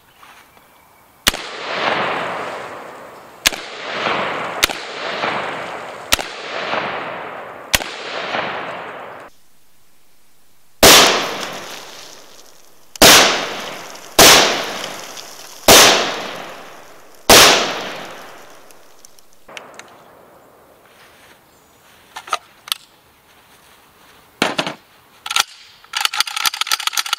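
G-Force Arms AR-12 semi-automatic 12-gauge shotgun being fired in quick succession. Five shots come a second or two apart, each trailing off in a long echo. After a short pause, five louder shots follow.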